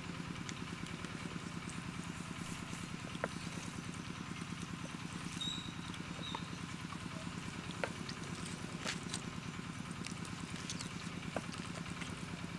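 A steady low engine hum, with a few faint separate clicks of knife blades on thick wooden chopping boards as raw chicken legs are cut open and deboned.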